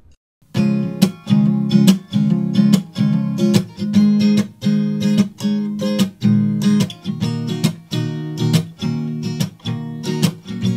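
Acoustic guitar strummed in a steady rhythm, about two strokes a second. It starts about half a second in, after a brief silence.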